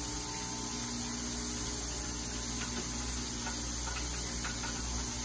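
A steady low electrical hum, with a few faint clicks of handling.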